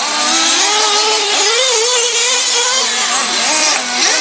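Small nitro engines of 1/8-scale RC truggies racing, several at once. Their high-pitched whine rises and falls as they accelerate and brake around the track.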